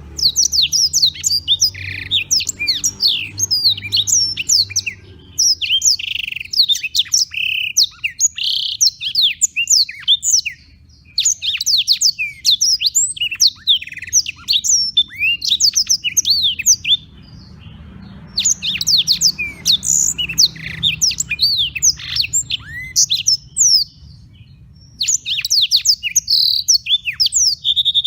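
Blackthroat (black-throated canary) in full song: long, fast phrases of high sweeping chirps and trills, breaking off a few times for a second or two.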